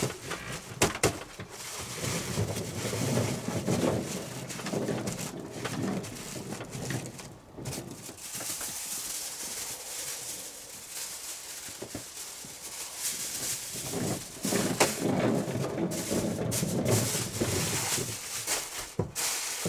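Aluminium foil crinkling and rustling as meat is wrapped in it, with a few sharp clicks about a second in and near the end, and two longer stretches of low, muffled handling noise.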